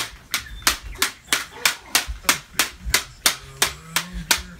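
Plastic toy lightsabers clacking together in quick, even strikes, about three a second.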